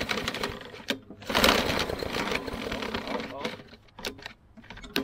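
Lawn mower's small engine being pull-started: about a second in the recoil starter is yanked and the engine turns over and sputters for a couple of seconds without starting.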